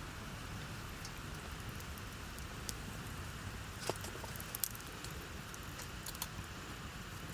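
Fire crackling, with scattered sharp pops over a steady low rumble.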